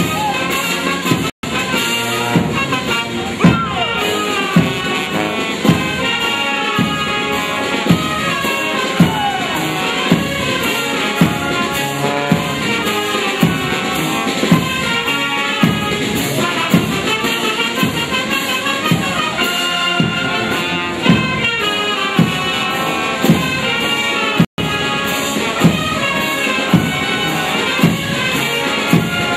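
Military marching band playing a march: brass, clarinets and saxophones over a bass drum hitting about once a second. The sound cuts out for an instant twice.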